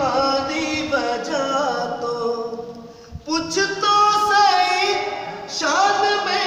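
A man singing a manqabat, a devotional poem, unaccompanied in long melodic phrases with held, ornamented notes. He breaks for breath about three seconds in, then comes back louder.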